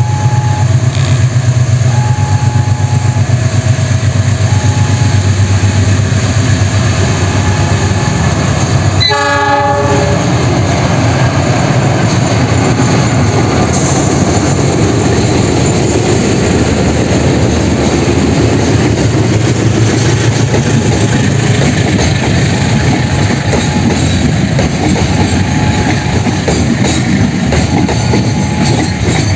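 Diesel locomotive hauling a long freight train past at close range: the engine rumbles as it approaches and gives one short horn blast about nine seconds in, then the wagons clatter steadily over the rail joints. A two-note signal alternates faintly in the background.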